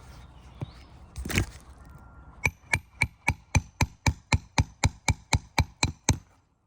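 A hammer driving a reused roofing nail back into an asphalt shingle: about fifteen quick, even strikes, roughly four a second, each with a short metallic ring. They start about two and a half seconds in, after a single scuff about a second in, and stop shortly before the end.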